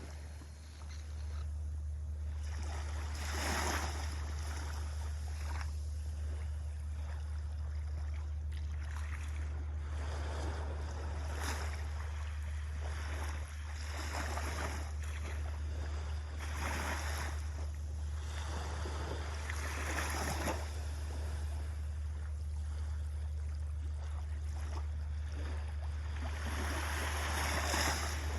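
Small waves washing onto a sandy beach, each swelling up and falling away every few seconds, over a steady low rumble.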